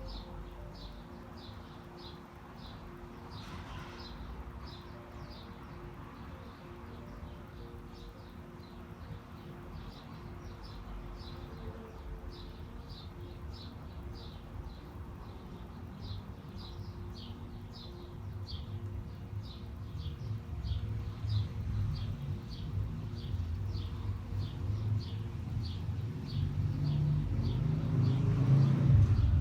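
A small bird repeating a short high chirp about twice a second, over the steady low hum of the city. From about two-thirds of the way in a low rumble builds, loudest near the end.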